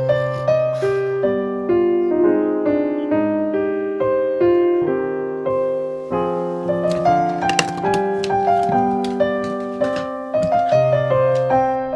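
Background piano music: a gentle melody played over held chords.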